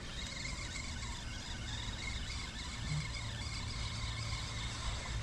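Steady low rumble and hiss of wind on the microphone, with no distinct event.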